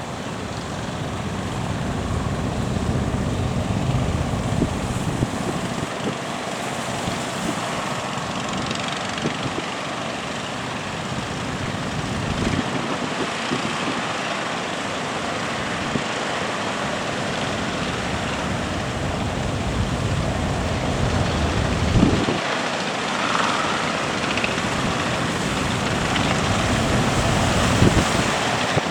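Fishing boat engine running steadily, mixed with heavy wind and surf noise. Two brief thumps come near the end.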